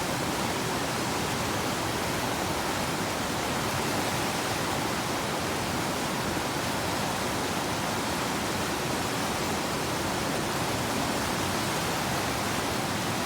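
Whitewater of the Animas River rapids rushing, a steady, unbroken wash of water noise.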